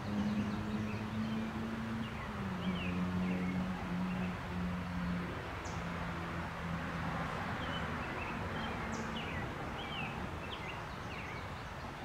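Outdoor ambience of small birds giving short chirps, more of them in the second half, over a low engine hum that steps down in pitch and fades out about nine seconds in.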